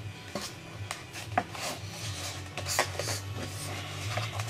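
Irregular rubbing and scraping of Z-foam as the freshly cut flap of a foam model-plane wing is worked loose by hand.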